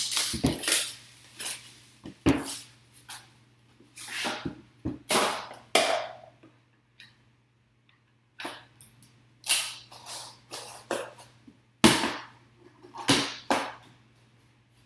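Hands opening a sealed cardboard trading-card box: a run of irregular scrapes, rubs and swishes as the seal is cut and the box handled, with gaps between them. A faint low hum runs underneath.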